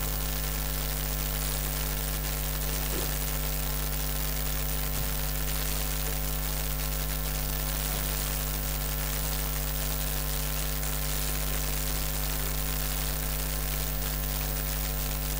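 Steady electrical mains hum with a constant hiss: a buzz of many evenly spaced tones that does not change.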